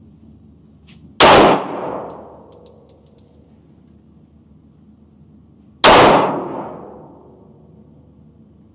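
Handgun fired twice, about four and a half seconds apart; each shot is very loud and sudden, with an echo that dies away over about a second.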